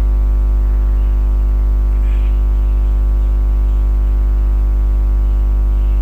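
Loud, steady electrical mains hum: a low buzz with a long stack of overtones that stays unchanged throughout.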